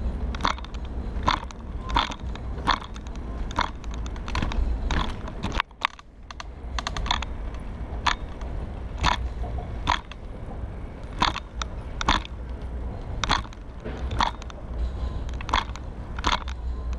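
HP Velotechnik recumbent trike rolling down a paved ramp: a steady low rolling rumble with a sharp clack about every 0.7 seconds as the trike jolts over the paving.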